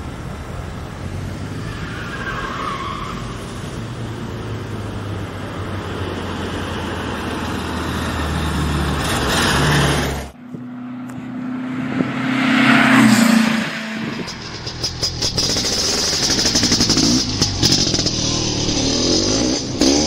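Air-cooled Volkswagen Beetle engine running as the car drives, a steady low drone that grows a little louder. About halfway it cuts off suddenly and a different, brief sound follows. In the last few seconds there is music with a regular beat.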